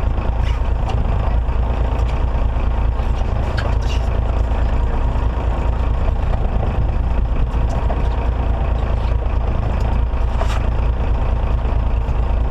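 Steady low rumble of the fishing boat's engine, with a few faint clicks.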